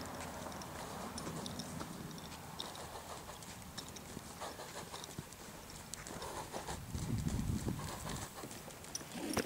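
Hoofbeats of a chestnut Quarter Horse colt trotting loose on a sand pen floor, a run of irregular ticks. A louder low rumble comes in about seven seconds in.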